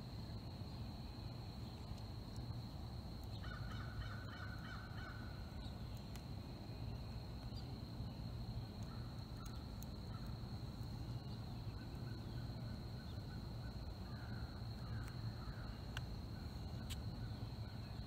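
Birds calling: a run of quick, harsh repeated calls about three and a half seconds in, and more scattered calls later. Under them runs a steady high-pitched tone and a low rumble.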